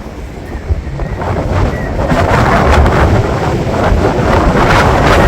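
Strong wind gusting, building about a second in to a loud rush with heavy low buffeting of the microphone.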